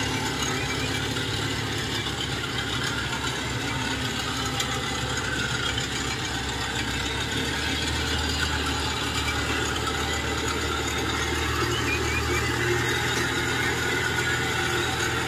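Engine of a heavily loaded tracked rice-hauling carrier running steadily as it crawls along under a full load of paddy sacks. The low engine hum grows a little louder in the second half.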